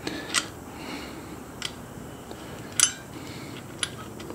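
Metal spanner clicking against the brass collar nut holding the jet of a camp stove burner as the nut is loosened: four short, sharp metallic clicks about a second apart, the loudest near three seconds in.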